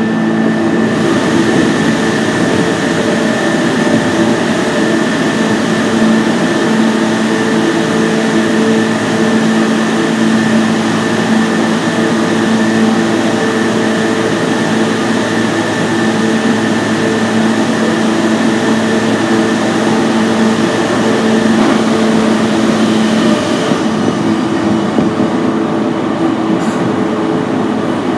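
An E233 series 0-number-group electric train running at speed, heard from inside the passenger car: steady rumble of wheels on rail with a constant hum and a high steady tone from the drive, which fades out about three-quarters of the way through.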